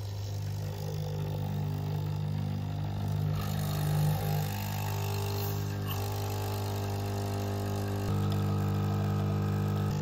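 Krups Nespresso capsule machine's pump buzzing steadily as it forces hot water through the capsule to brew a full cup, with coffee pouring into the mug. The buzz shifts a little and gets slightly louder about eight seconds in.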